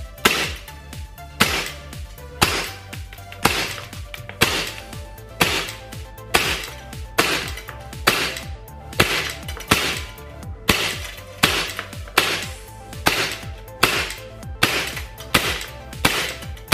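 CO2-powered airsoft pistol firing single shots in a velocity test string, about one shot a second, over background music.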